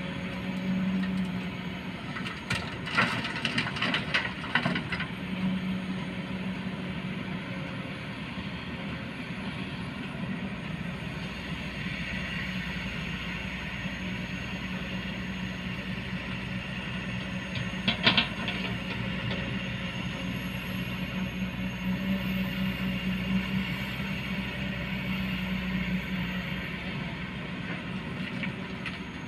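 Kobelco hydraulic excavator's diesel engine running steadily, its note swelling and easing as the hydraulics take the load of digging and swinging. A burst of clattering soil and rocks from the bucket comes about three to five seconds in, and a single sharp clank about 18 seconds in.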